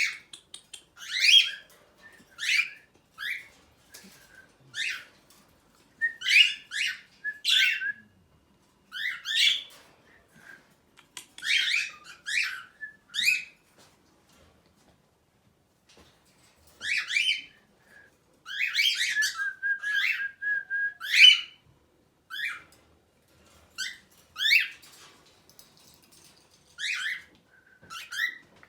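Small pet parrots calling: short, sharp chirps and squawks in bursts with pauses, and one held whistled note about two-thirds of the way in.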